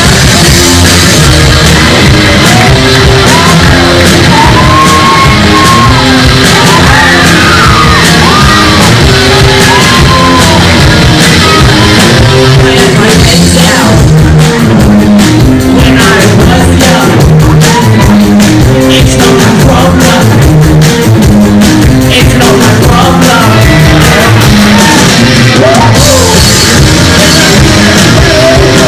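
Rock band playing live, loud: electric guitars and drums under a young male voice singing lead.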